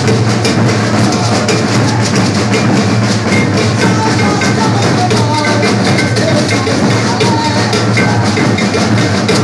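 Maracatu percussion ensemble playing a dense, driving rhythm without pause: deep alfaia bass drums under snare drums, with wooden and metal strokes on top.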